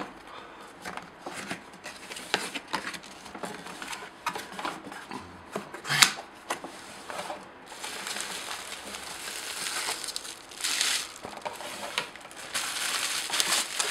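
Cardboard packaging being handled: box flaps and an inner carton scraping and rustling, with a sharper knock about six seconds in. Near the end, longer stretches of crinkling as bubble wrap is handled.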